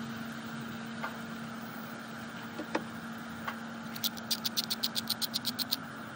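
Steady hiss of a camp-stove burner under a cast iron skillet of coconut-milk sauce simmering, with a few scattered clicks. About four seconds in, a rapid run of about a dozen clicks, about seven a second, from a salt grinder being twisted over the pan.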